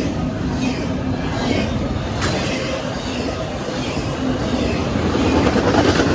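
CSX intermodal freight train rolling past at speed: a steady, loud rumble of wheels on rail with a few sharp clacks, growing a little louder near the end.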